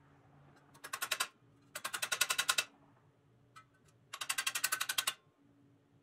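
Rapid metallic clicking in three bursts, roughly half a second to a second long each, about a dozen clicks a second, from pressed-steel toy-truck parts being worked at a bench vise.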